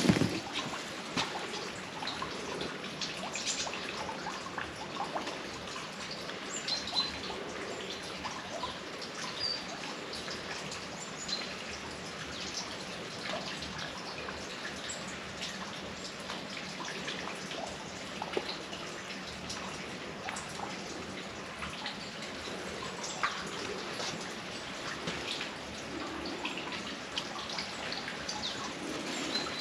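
Rain falling, a steady hiss with scattered sharp drips.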